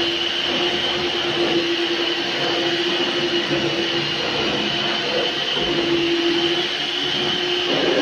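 Stainless-steel wet/dry canister vacuum running steadily: a constant motor hum with a high whine, the low tone briefly dropping out about five seconds in.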